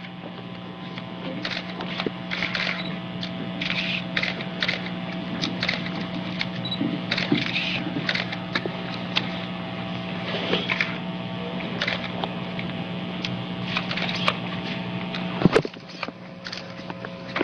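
A steady low electrical hum with short clicks and rustles scattered through it, and one sharp knock near the end.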